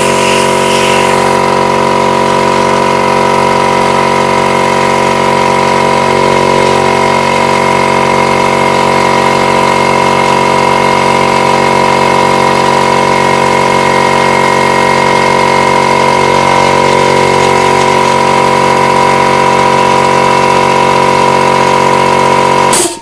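Small 24-litre portable air compressor running steadily, cut back in to refill its tank after plasma cutting drew the pressure down to its restart point. It cuts off suddenly near the end.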